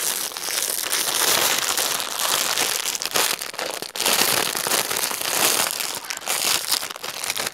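Clear plastic packaging bag crinkling and crackling continuously as it is handled and pulled open, wrapped around a folded cloth.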